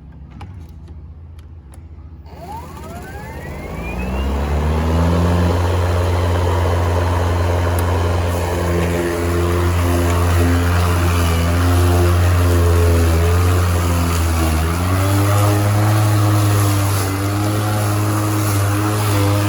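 Ryobi 40V HP brushless battery lawn mower's electric motor spinning up with a rising whine about two seconds in, then running as a steady hum while cutting thick grass. Its pitch steps up a little about fifteen seconds in.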